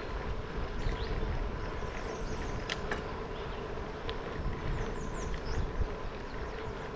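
Riding noise from a bicycle on a paved path picked up by a bike-mounted camera: wind rumble and a steady hum, with a couple of sharp clicks about three seconds in and a few short high chirps later on.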